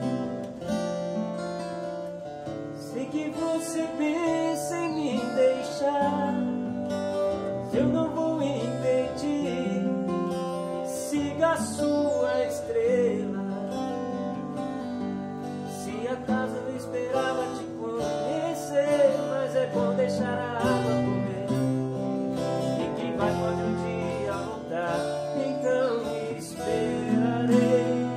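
Several acoustic guitars playing an instrumental passage together, strummed chords under a line of quickly picked notes.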